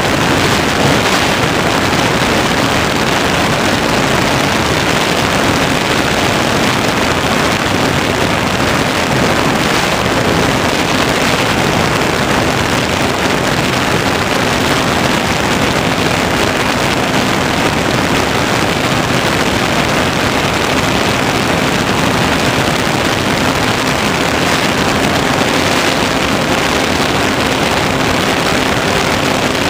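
Onboard sound of an Easy Glider Pro RC motor glider in flight: a loud, steady rush of airflow over the plane-mounted camera's microphone, with a faint steady hum from the electric motor and propeller.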